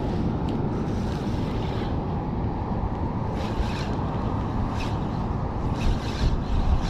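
Wind rumbling on the microphone at sea, with a few short sloshes of water against the kayak.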